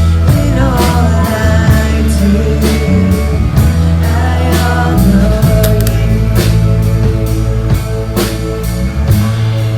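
Worship music with singing over a drum kit keeping a steady beat and held bass notes.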